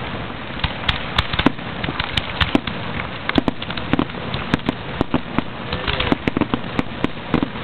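Fireworks finale: many shells bursting in quick, irregular succession, sharp bangs and pops over a steady crackling haze.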